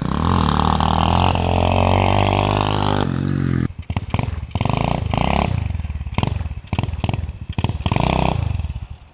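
SSR 125 pit bike's small single-cylinder engine running loud and steady for about three and a half seconds, then in short choppy bursts of throttle. It drops away near the end.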